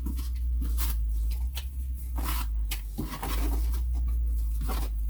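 Irregular rustling and scraping of packaging as the printer kit's panels, still in their protective plastic film, are handled in their box, over a steady low hum.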